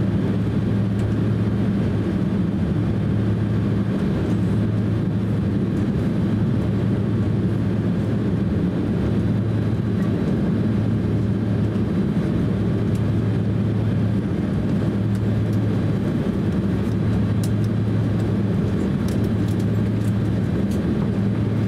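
Cabin noise inside a Boeing 767-300 airliner taxiing, its twin turbofan engines at taxi power. It is a steady rumble with a low hum that swells and fades every couple of seconds.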